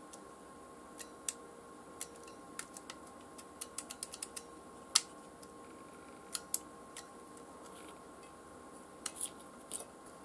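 Sharp, irregular clicks from handling a battery-powered Weller soldering iron converted to run on an 18650 cell: its plastic body and switch clicking as it is turned over and operated, the loudest click about five seconds in. A faint steady tone runs underneath.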